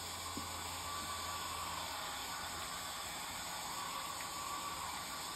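Hair dryer running steadily on one setting, drying a wet watercolour layer on the paper.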